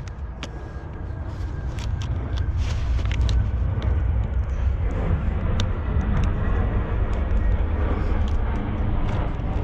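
Low rumble on the microphone, louder after the first few seconds, with scattered small clicks and taps of a wire being worked into a car wiring connector.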